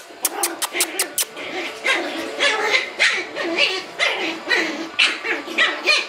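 Puppies yipping and barking in play: short high-pitched yips about two a second. It opens with a quick run of sharp clicks in the first second.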